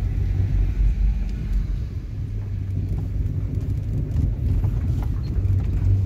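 Low, steady rumble of a car driving slowly over sand, its engine and tyres heard from inside the cabin.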